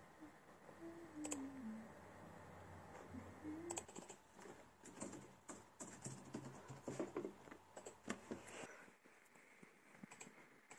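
Quiet typing on computer keyboards, with scattered key and touchpad clicks that come thicker from about four seconds in.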